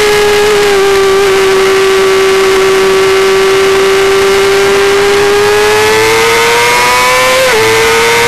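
1990 Honda CBR250RR's 249 cc inline-four running at high revs under race load. The pitch sags slightly through the corner, then climbs steadily as the bike accelerates, drops abruptly near the end at an upshift, and starts climbing again. Wind rush on the onboard camera runs underneath.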